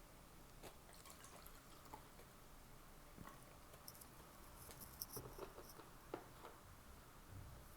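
Faint close-miked eating sounds: soft, wet mouth clicks and smacks of chewing, with a small cluster of them about five seconds in.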